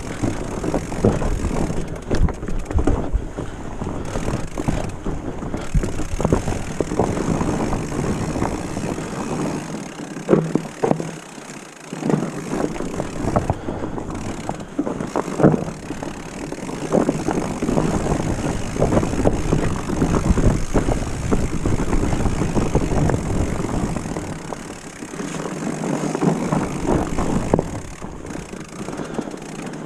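Mountain bike riding over a leaf-covered dirt trail: tyres rolling over leaves, roots and rocks, with the bike rattling and knocking over the bumps and a low rumble that eases off briefly twice.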